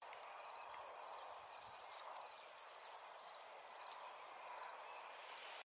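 A cricket chirping at an even pace, just under two short trilled chirps a second, over a faint hiss of outdoor ambience; it all cuts off suddenly near the end.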